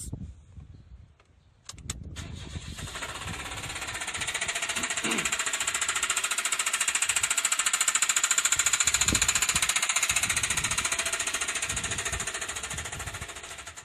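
Nissan Moco's 660 cc three-cylinder engine starting about two seconds in and running with a very loud, rapid metallic knocking, like someone hammering inside the engine bay. The knocking swells to its loudest midway and eases off near the end. The mechanic suspects seized crankshaft bearing metals from poorly kept oil changes.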